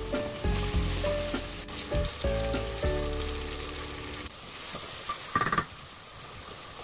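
Chopped tomatoes and onions sizzling in hot oil in a stainless steel pot, a steady frying hiss as the tomatoes go in for sautéing. A short, loud sound comes a little past five seconds in.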